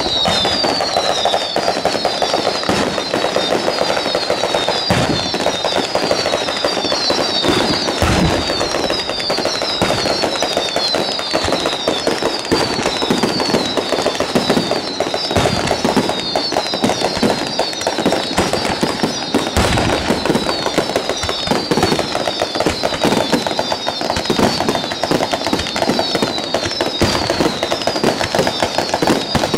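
A ground-level firework batteria going off: a continuous rapid crackle of firecrackers with occasional heavier bangs, and a steady stream of short falling whistles over it, about two a second.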